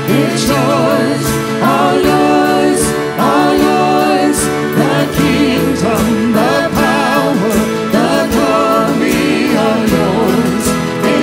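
Live church worship music: a band playing with singing over sustained chords.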